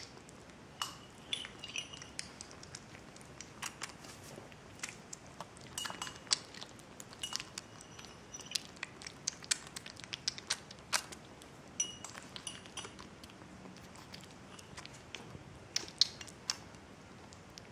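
Young kitten eating wet kitten food from a small porcelain saucer: irregular soft clicks and taps with wet chewing, the saucer now and then clinking with a short ring.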